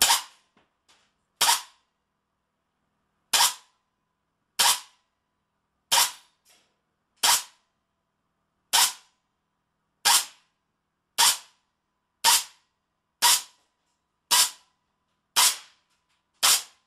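A .25 calibre semi-automatic air cannon, fired through an electronically controlled solenoid valve, shooting a string of single shots: about fourteen sharp cracks, roughly one to one and a half seconds apart.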